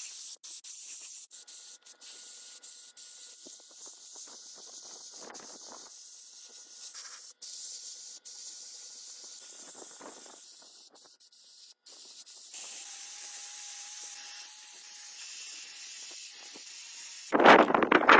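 A steady high-pitched hiss, broken by several abrupt cuts, with a faint steady tone running under parts of it.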